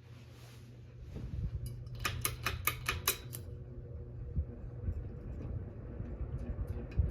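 Litex hugger ceiling fan running with a low motor hum that grows louder about a second in. A quick run of about seven sharp clicks comes near the middle, and the hum then holds steady with a faint tone over it.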